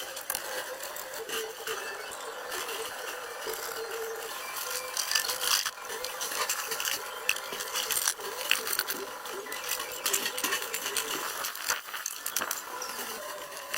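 Continuous rattling with many irregular sharp clicks and taps, the sound of metal parts or hand tools being worked.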